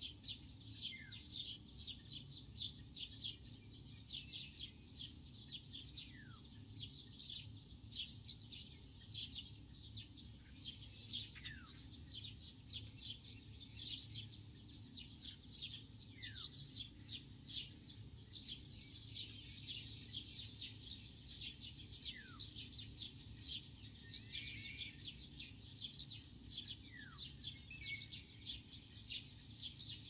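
Wild birds chirping quickly and continuously in a dense chorus, while one bird repeats a short falling whistle about every five seconds. A faint steady low rumble runs underneath.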